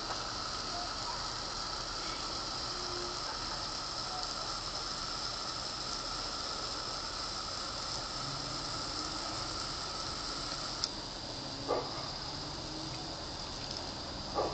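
Lawn sprinkler jet spraying with a steady hiss of water, with a few brief clicks near the end.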